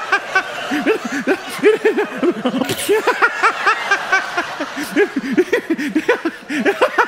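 Hearty, prolonged laughter: a man laughing hard in quick repeated ha-ha sounds, with an audience laughing along.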